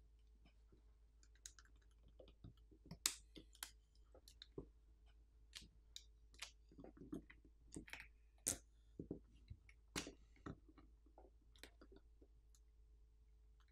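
Faint, irregular clicks and crackles as a smartphone battery is pried up with a metal spudger and plastic pick and worked loose from its strong adhesive, which has been softened with isopropyl alcohol. The crackling is loudest a few seconds in and again around two thirds through.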